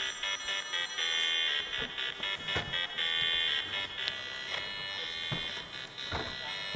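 Buzzy electronic tones in short on-off notes, like a square-wave chiptune or a buzzer. About four seconds in the pattern thins out and a few brief clicks sound.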